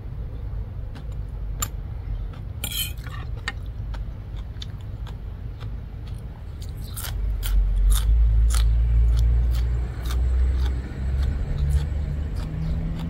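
Close-up chewing and crunching of papaya salad and fresh herbs, with sharp crunchy clicks scattered through. Under it runs a low engine rumble that swells about seven seconds in and then eases off.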